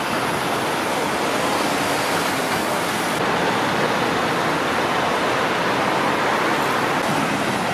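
Steady, even rushing noise, with no voices.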